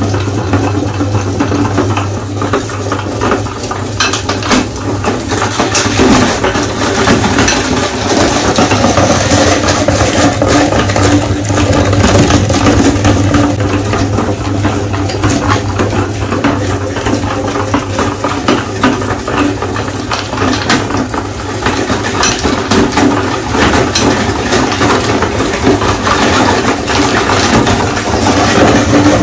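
Meat grinder motor running with a steady hum while hard-candy lollipops are crushed in the auger, giving a dense, irregular cracking and rattling crunch.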